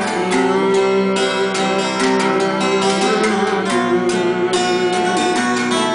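Two acoustic guitars playing together, strummed chords with a steady rhythm.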